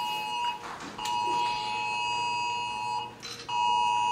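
Mobile phone wireless emergency alert attention tone, which she takes for another Amber Alert. It is a harsh two-tone beep: one long beep of about two seconds, a short gap, then a one-second beep.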